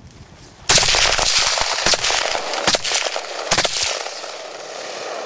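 Four rifle shots from a Saiga MK semi-automatic in .223 Remington, roughly a second apart. The first, a little under a second in, is the loudest, and a loud noisy wash carries on between the shots and fades after the last.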